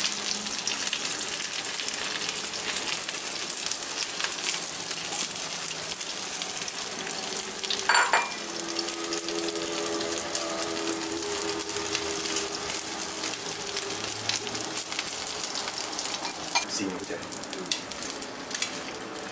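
Egg and Napa cabbage frying in a nonstick pan with a steady sizzle, while a wooden utensil stirs and taps against the pan. There is a sharper knock about eight seconds in.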